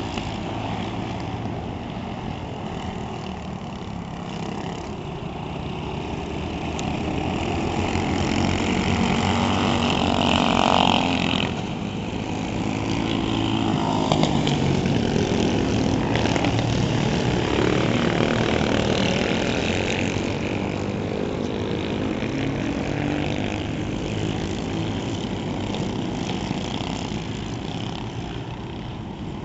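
Tuned Honda GX200 single-cylinder four-stroke kart engines running laps, their revs rising and falling as the karts accelerate out of and brake into corners. Loudest as karts pass closer, around ten seconds in and again from about fourteen to twenty seconds, then fading.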